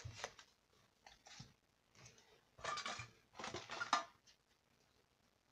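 A stack of basketball trading cards being handled and flipped through, with rustling, sliding and small clicks as the cards rub and tap together. The sound comes in short bursts, longest about two and a half to four seconds in.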